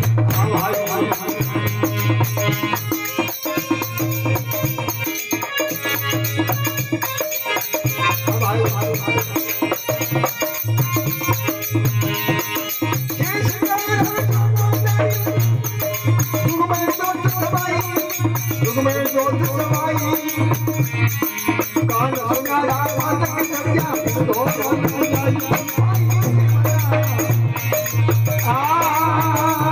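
Live Rajasthani folk bhajan: harmonium melody over a steady low drone, a hand-played dholak drum, and a constant rattling percussion rhythm, with a man singing into a microphone.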